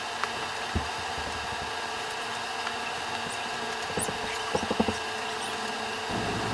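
Fabric pillow cover and foam pad being handled and pushed together: soft scratchy rustling with a few light clicks, a cluster about four to five seconds in, over a steady background hiss.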